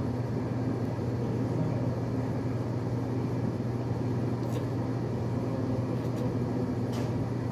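Steady low mechanical hum with an even, unchanging pitch over general outdoor city noise, with a few faint ticks in the second half.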